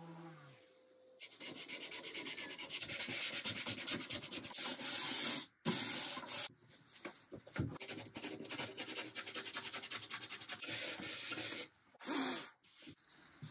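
Hand sanding an oak table top with a sanding sponge: quick back-and-forth rubbing strokes, starting about a second in and pausing briefly a few times.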